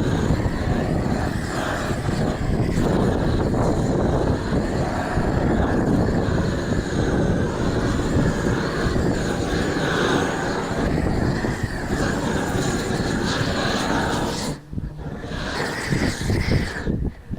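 Propane roofing torch burning loudly with a steady roar. It cuts out sharply about fifteen seconds in, comes back briefly, and cuts out again near the end.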